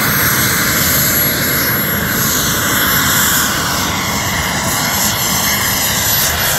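Turbine engine of a large radio-controlled model jet running steadily as the plane climbs vertically, a loud, even rushing whine, its pitch beginning to fall near the end.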